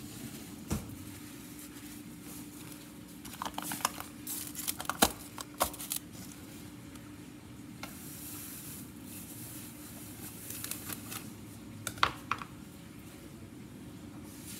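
Kitchen handling noises during food prep: scattered clicks, taps and crinkling rustles from dishes and food packaging, in a cluster about four to six seconds in and again around twelve seconds in, over a steady low hum.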